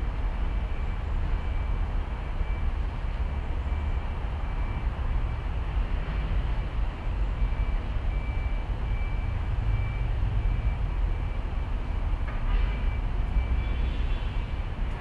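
Wind rumbling on the microphone, a steady low buffeting with an uneven loudness, while a faint high tone comes and goes in short repeated dashes.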